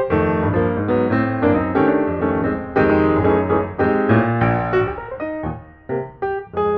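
Background piano music: quick successive notes played over low chords, briefly thinning out about five seconds in.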